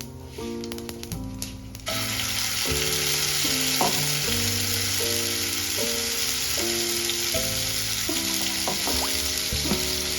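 Food sizzling in hot oil in a pan, starting abruptly about two seconds in and holding steady, over soft background music.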